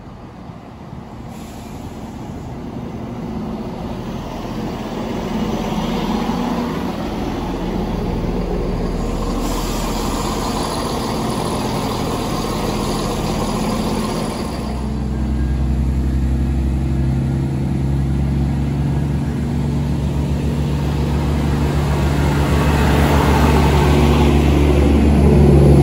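Class 170 Turbostar diesel multiple unit arriving, its running noise growing louder as it draws into the platform. About halfway through its underfloor diesel engines settle into a steady low drone at a stand, and they grow louder again near the end.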